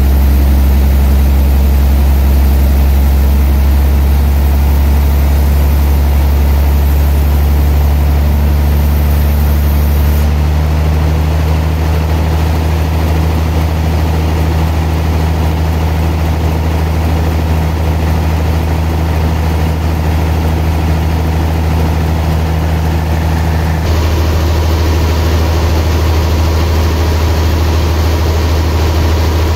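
Sawmill machinery running with a loud, steady low drone while a large trembesi log is being cut. The drone changes abruptly about a third of the way in and again near the end.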